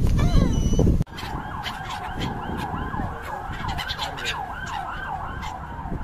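A flock of gulls calling. For the first second their cries sit over a loud low rumble; after a sudden cut comes a quieter, fast chorus of repeated rising-and-falling gull cries, about three a second and overlapping.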